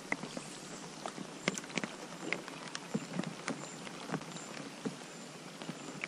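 Rain falling on a river's surface: a steady hiss with many individual drops splashing at irregular moments.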